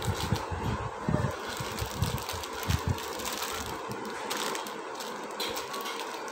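Handling noise as a striped cotton khes is moved and unfolded close to the phone: cloth rustling and crackling, with irregular low thumps on the microphone in the first three seconds, over a steady background noise.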